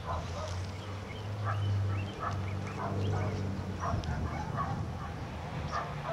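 German Shepherd puppy giving a string of short, high-pitched excited whines and yelps, about two to three a second, while jumping up at his handler in play drive. A low steady hum runs underneath and swells twice.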